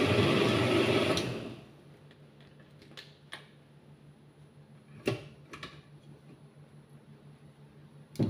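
Countertop blender running at full speed, switched off about a second in and spinning down. Then a low hum with a few light clicks and knocks as the blender jug's lid is taken off and the jug is lifted from its base, and a sharper knock near the end.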